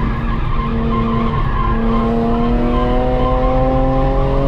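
BMW E46 M3's S54 straight-six on track, heard from inside the car. It holds a steady note, then climbs in pitch as the car accelerates over the last two seconds or so, with the tyres squealing through the first part.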